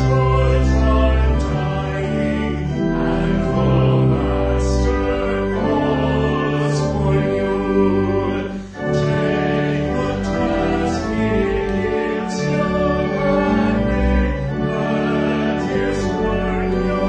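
A hymn sung by voices with organ accompaniment, slow held chords with a brief break about nine seconds in.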